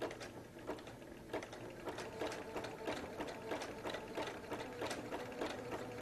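Domestic electric sewing machine stitching a zigzag seam, a fast even run of needle clicks that picks up a little about two seconds in. These are the first stitches of the seam, sewn in reverse as a backstitch to lock them.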